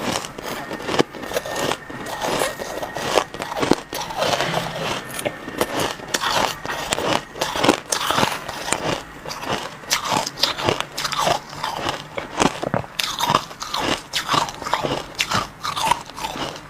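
A person biting and chewing crushed ice, making a continuous run of sharp, irregular crunches, several a second.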